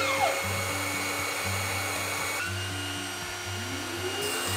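Electric power saw motor spinning up to speed and running steadily, twice, with background music underneath.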